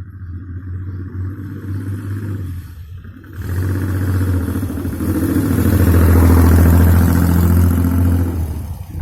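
Motorcycle fitted with a car engine, running on the road. The engine drops off briefly about three seconds in, then pulls harder and gets louder, and eases off near the end.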